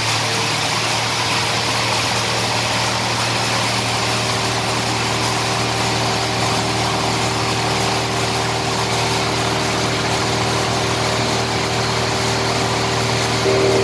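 Wood crusher machine running steadily: a constant hum with a wide noise of spinning rotor and air, getting a little louder just before the end.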